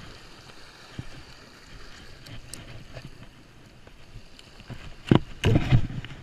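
Wind buffeting the microphone over the wash of small surf, then a cluster of loud knocks and rustles about five seconds in.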